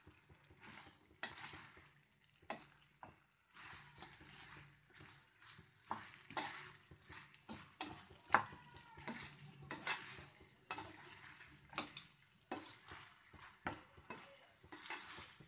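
A spatula stirring and scraping through thick cauliflower-and-potato masala gravy in a coated frying pan, with irregular scrapes and taps against the pan over a faint sizzle from the hot curry.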